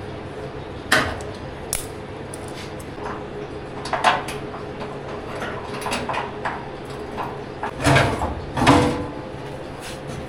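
Scattered metal clanks and knocks as tailgate parts and tools are handled: a sharp one about a second in, a few lighter ones through the middle, and two heavier clatters near the end, over a steady background hum.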